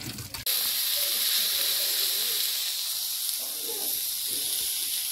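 A steady hiss starts abruptly about half a second in, with faint voices underneath.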